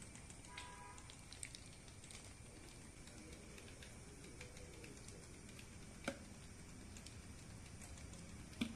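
Faint wet squishing and small clicks of fingers working thick masala paste into pomfret fish on a steel plate, with two sharper clicks against the plate about six seconds in and near the end.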